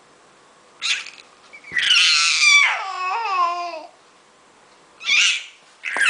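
Baby squealing with delight: a short breathy squeal about a second in, then a long high squeal that slides down in pitch, and another short squeal near the end.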